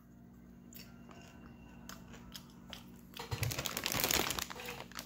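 Popcorn crunching: faint scattered crunches as it is chewed, then a louder, dense crackling rustle about three seconds in.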